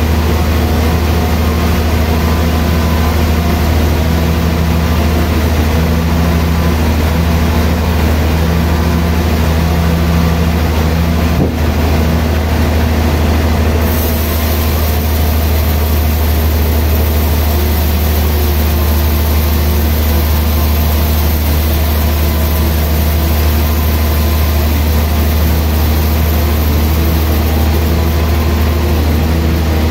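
Large vertical band sawmill running with a loud, steady low drone as its blade cuts a slab from a log; a high hiss comes in suddenly about halfway through.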